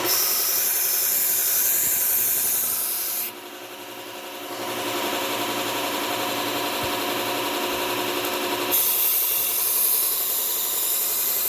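Knife blade ground on a 3M Cubitron II P120 belt running on a Bucktool low-speed belt sander, raising a burr on the edge: a steady motor hum under a loud, bright grinding hiss. The hiss drops away for about a second a little after three seconds, comes back more softly, then turns harsh again near nine seconds.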